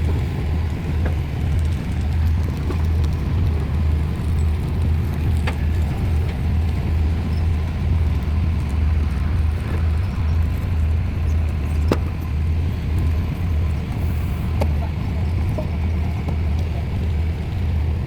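Heavy diesel engine of a piling rig running steadily with a deep, even rumble, with a few faint clicks. No regular hammer blows.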